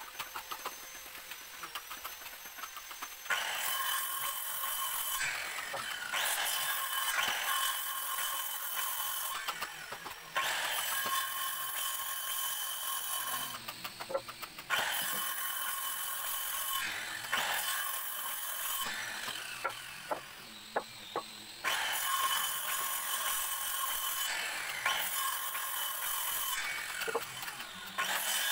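Handheld electric circular saw running and cutting through teak timber, a steady motor whine with cutting hiss. It starts about three seconds in after a few small clicks, and briefly drops off and restarts several times between cuts, with a longer stop about twenty seconds in.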